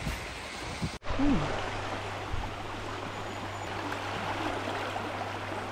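Steady rush of a shallow river flowing over rocks, starting abruptly about a second in.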